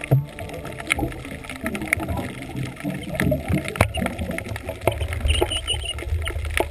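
Underwater audio from the diver's camera: a steady low rumble of water with irregular clicks and knocks.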